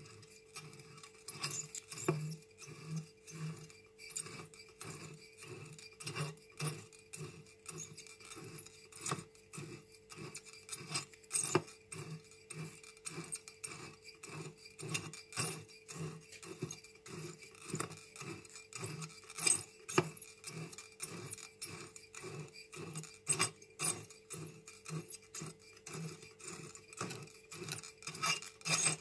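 Glass wine bottle turned by hand in a hot-wire bottle cutter, rubbing and scraping against the glowing wire and the chipboard guides in repeated strokes about two a second, with small glassy clinks, while the wire heats a line around the bottle to crack the bottom off. A steady hum runs underneath.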